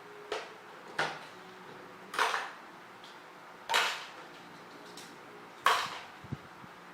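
Plastic toy pieces being handled: five sharp clacks spaced a second or more apart, then a duller knock near the end.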